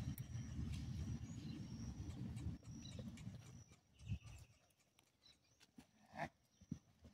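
Loose horse trotting and cantering across a grass pasture, its hooves on turf giving dull thuds. A low rumble fades out about two and a half seconds in, and a few sharp knocks follow, the loudest about six seconds in.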